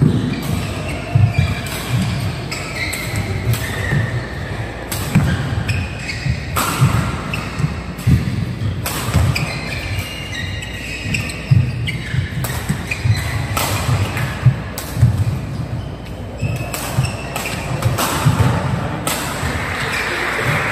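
Badminton singles rally on an indoor court: sharp racket hits on the shuttlecock about every second or so, over players' footsteps thudding on the court and short shoe squeaks, echoing in a large hall.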